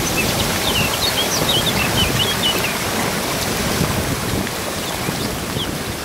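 Waterfall and shallow rapids rushing steadily over rocks. A small bird chirps repeatedly in short high notes during the first half.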